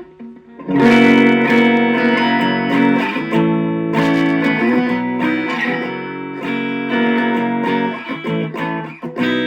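Electric guitar on its humbucker pickup, played through a Boss Katana Mini amp. Chords are strummed and left to ring, starting about a second in and changing every second or so.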